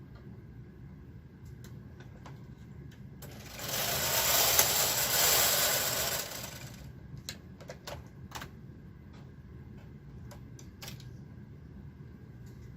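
Knitting machine carriage pushed once across the needle bed, a loud rattling swish of about three seconds, with scattered clicks before and after.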